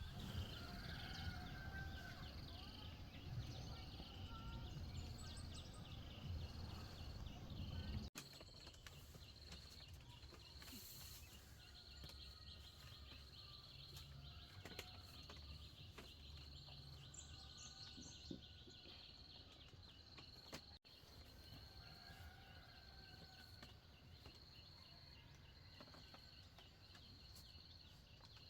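Quiet rural ambience: an insect calling in a steady, evenly pulsing high chirr, with a few faint bird chirps and small scattered clicks.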